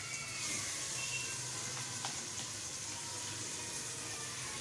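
Spiced tomato-chilli masala sizzling steadily in hot ghee in a pan as boiled, mashed potatoes are added to it.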